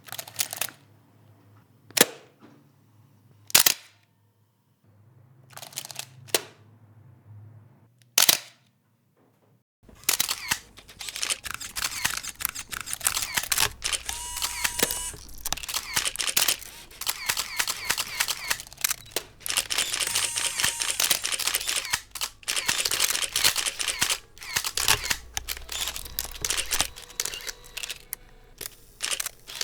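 Camera shutters firing: a few single shutter releases spaced a second or two apart, then from about ten seconds in a dense, continuous barrage of many shutters clicking rapidly at once, like a pack of press photographers shooting together. A couple of short beeps sound within the barrage.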